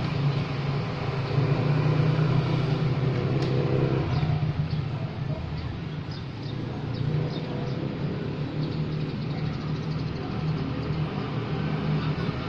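Road traffic: a steady low engine hum, with motorcycles passing on the road.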